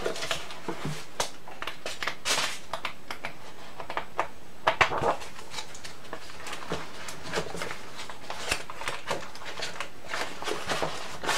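Rustling, shuffling and light knocks of papers and objects being handled while a coloring book is searched out and picked up. The sounds are scattered and irregular, with the loudest rustles about two seconds in and about five seconds in.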